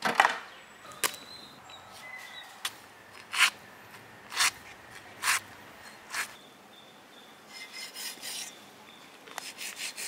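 Large knife slicing and scraping through a raw goat leg, cutting the meat away from the bone: single slicing strokes about once a second, then quicker back-and-forth sawing strokes near the end.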